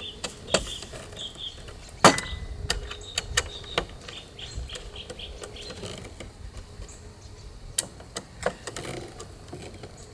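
Scattered clicks and light knocks of objects being handled, the loudest about two seconds in, with faint short high chirps in the background during the first few seconds.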